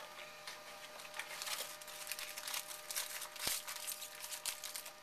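Crinkly, scratchy rustling of a foil trading-card pack being torn open and the cards handled, with a light knock about three and a half seconds in.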